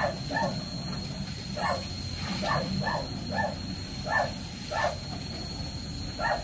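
Dog barking repeatedly: about nine short barks at an uneven pace, some in quick pairs.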